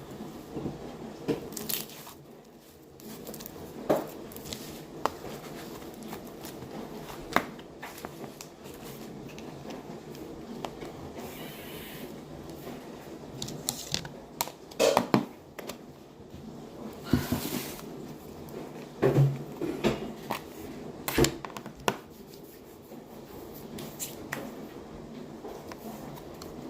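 Slime being squished and pulled by hand, making irregular small clicks and crackling pops, with a cluster of louder pops in the second half.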